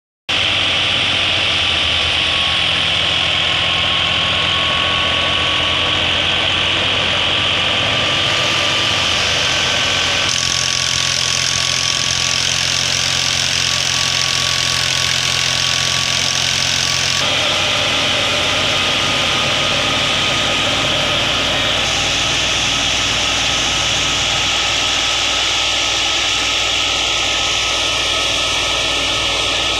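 Al-Ghazi diesel tractor engine running steadily under load, driving a wheat thresher, with the thresher's drum and fan making a loud steady whir as wheat is fed through. The mix of sound changes abruptly twice.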